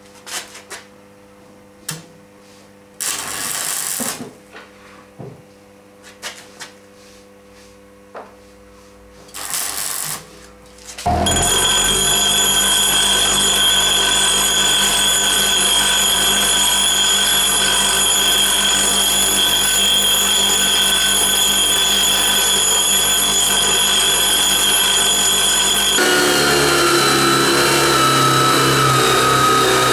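Two short rasping passes of a hacksaw on a threaded steel rod held in a vise. About eleven seconds in, an angle grinder starts running with a loud, steady whine as a threaded rod's end is ground against its disc. Near the end the sound changes to an electric drill in a drill guide boring into a wooden block.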